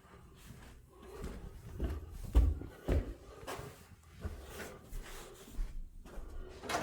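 A series of knocks and thumps indoors, like a door or cupboard being handled, with two heavier thuds about two and a half and three seconds in.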